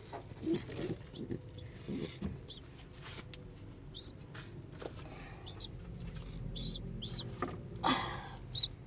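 Pigeon squabs peeping faintly, a few short high cheeps scattered through, with light rustling in the loft just before the end.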